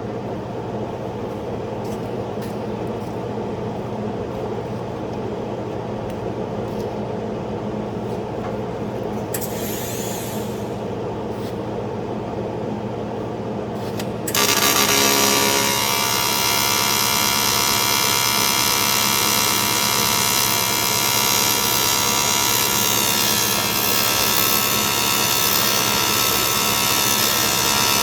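A welding machine humming steadily, then about halfway through an arc strikes on aluminium and buzzes loudly and steadily while the weld is laid.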